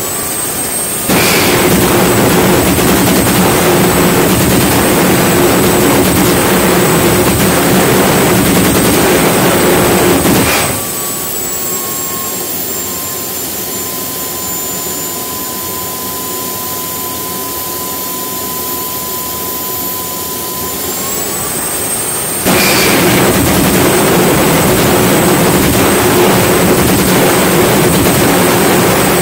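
Homemade gas turbine jet engine with an afterburner running with a steady high whine. About a second in, the afterburner cuts in with a sudden jump to a much louder, rushing burn. It drops out after about ten seconds and the turbine settles back. The turbine then spools up again, and near the end the afterburner relights with another sudden jump in loudness.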